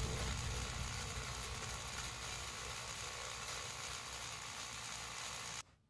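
A motorized toy train's small motor and gears whirring faintly, then cutting off abruptly near the end.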